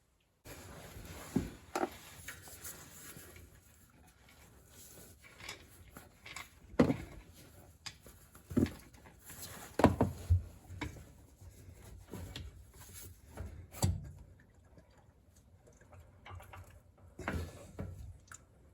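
Irregular clunks, taps and rustling of hands working the oil-filling gear at the gearbox fill plug, with a few sharper knocks spread through.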